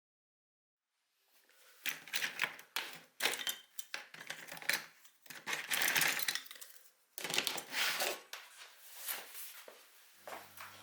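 Clicking and clinking of small hard objects being handled, in uneven bursts with brief scrapes between them. A steady low hum comes in near the end.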